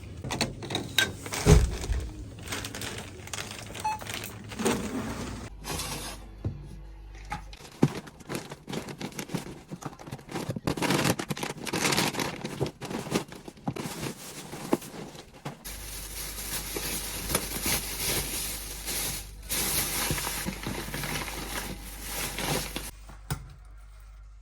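A run of short handling noises: clicks, knocks and crinkling of packaging as things are handled and set down, in several abruptly changing stretches.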